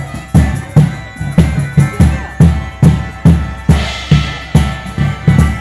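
Live band music: heavy drum beats about twice a second under steady held high notes.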